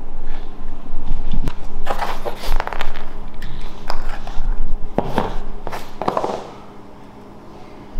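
Handling noises at a work table: a small jar's screw lid twisted off, and the jar and a paintbrush knocked and set down, a run of sharp clicks, knocks and scrapes that die away about six and a half seconds in, over a steady low hum.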